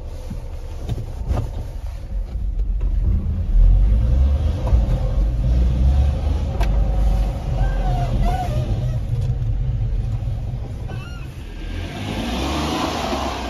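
Honda Acty kei truck's small three-cylinder engine running as the truck drives slowly, a steady low rumble loudest a few seconds in.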